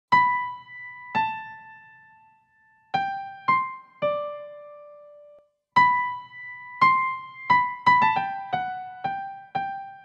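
Electric piano playing a slow single-note melody, each note struck and left to ring away. The notes come quicker and closer together in the second half.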